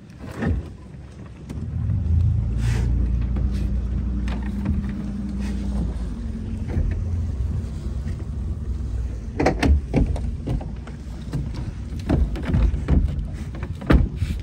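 Boat's outboard motor running under way, a steady low rumble that swells up about two seconds in. A series of sharp thumps and knocks comes through in the second half.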